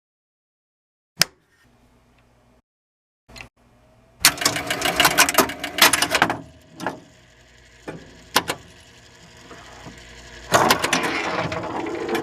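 Rapid mechanical clicking and ratcheting. A single sharp click comes about a second in, and dense clicking starts about four seconds in.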